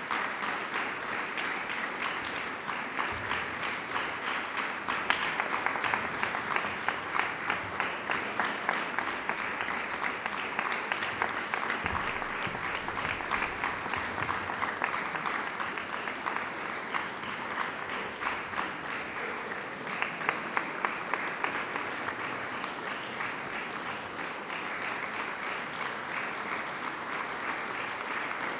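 Concert audience applauding steadily, a dense patter of many hands, with a few sharper claps standing out above it.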